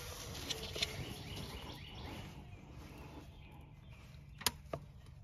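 Faint handling noises as a hand works the fuel filter's plastic drain valve under the truck: low rustling, then a sharp click about four and a half seconds in and a softer one just after.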